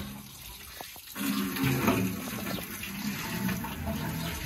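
Water pouring out of a large aluminium cooking pot as it is tipped over and splashing on the ground, getting louder about a second in.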